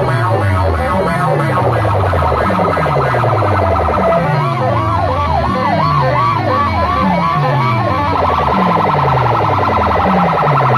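Loud DJ music from a street sound-box system: falling bass sweeps on a steady beat, with a fast-trilling synth tone overlaid and, from about four seconds in, a wavering siren-like tone.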